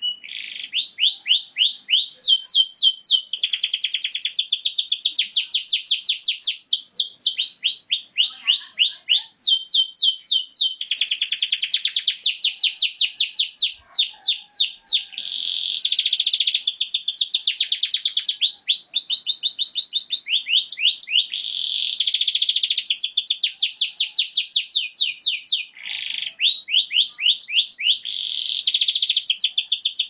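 Male domestic canary singing: long rolling trills, each a fast run of quick, high, downward-sweeping notes, switching to a new trill every few seconds with only brief pauses. This is the male song used to stimulate hen canaries into breeding condition.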